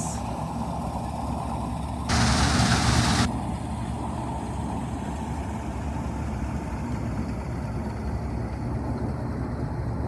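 New Holland combine harvester's diesel engine running steadily under load while it cuts wheat close by. A burst of hiss lasting about a second comes about two seconds in.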